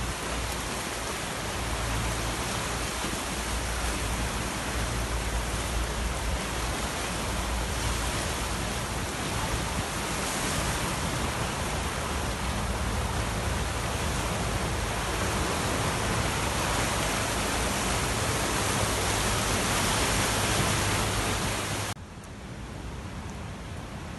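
Floodwater in a swollen river rushing over rapids: a loud, steady rush of turbulent water. About 22 seconds in it drops suddenly to a quieter, smoother flow.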